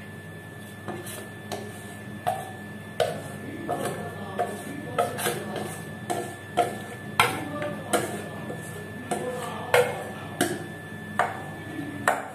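Wire whisk scraping and clinking against a stainless steel mixing bowl as thick cake batter is worked out into a cake tin, a sharp clink about every half to three-quarters of a second.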